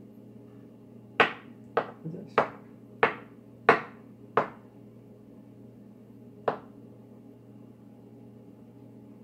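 Chef's knife chopping potatoes on a cutting board: six sharp knocks of the blade hitting the board, about every 0.6 s, then one more a couple of seconds later. The potatoes are being given a rough cut.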